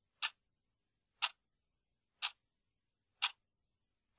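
Clock ticking, sharp single ticks evenly about a second apart over otherwise dead silence.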